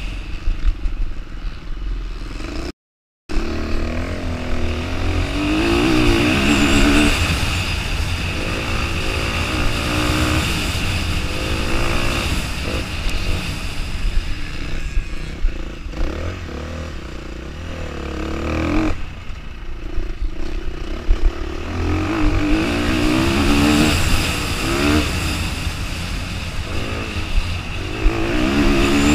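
Off-road motorcycle engine heard from on board, revving up and easing off again and again as the rider accelerates along the course and slows for corners, over a steady wind rumble on the microphone. The sound cuts out completely for about half a second about three seconds in.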